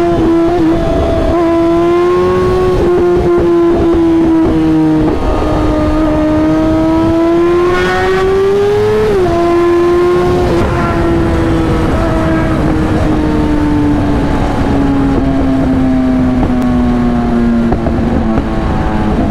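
On-board motorcycle engine running at high revs under steady throttle, its pitch climbing slowly, dropping sharply about nine seconds in as it shifts up, then sinking gradually as the bike slows. Wind rush over the microphone runs underneath.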